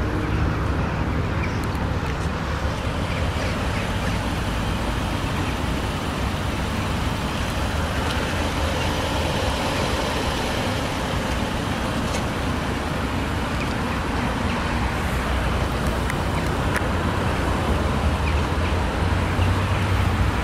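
Steady vehicle rumble with a constant hiss over it, unchanging throughout.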